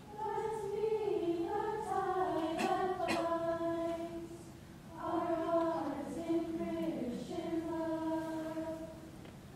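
Small church choir singing a slow hymn in unaccompanied harmony, held notes in two phrases with a short break for breath about halfway through.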